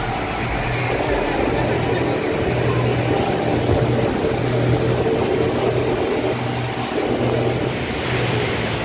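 Motor launch running at speed on a river: a steady engine drone that swells and eases slightly, with water rushing and churning in the wake along the hull.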